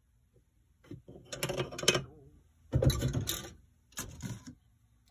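Plastic model-kit parts trees being handled: three spells of clatter and rustling as a sprue is lifted off a cutting mat and the next one is brought in.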